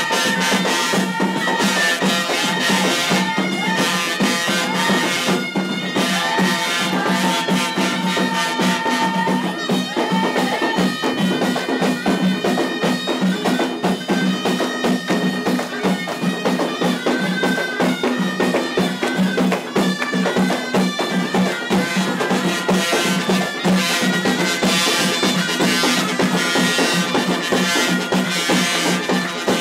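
Loud traditional Moroccan wedding music: shrill reed pipes play a melody over a steady drone, with drums beating along.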